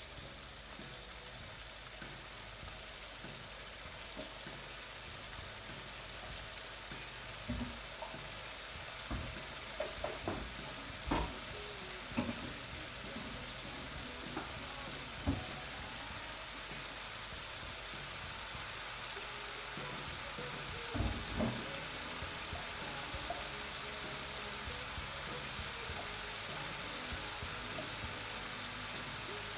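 Chicken saag curry sizzling steadily in the pan as its gravy cooks down toward a dry finish, with a few short knocks of a utensil stirring against the pan, mostly in the middle and again past the two-thirds mark.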